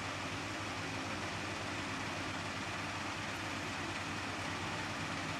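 Steady background hiss with a constant low hum, unchanging throughout: room tone with no distinct event.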